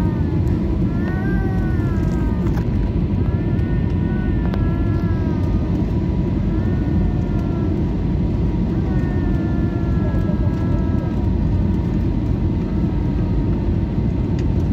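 Steady low rumble of airliner cabin noise, engines and airflow, on the landing approach. Over it a high voice rises and falls in several long drawn-out cries, like a young child crying in the cabin.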